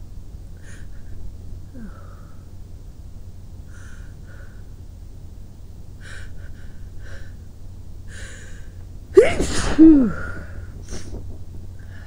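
A sick person sniffing and breathing in short catches several times, then letting out one loud, voiced two-part sneeze about nine seconds in, a sneeze she has been trying to induce.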